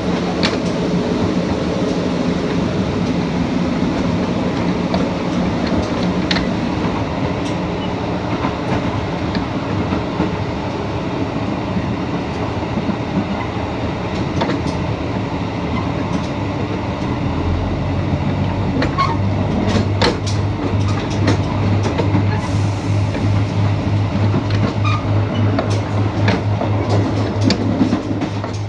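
Running sound of a KiHa 85 series diesel railcar heard from on board: a steady rumble of wheels on rail with scattered clicks from rail joints. About two-thirds of the way in, a low, pulsing diesel engine drone comes in and holds.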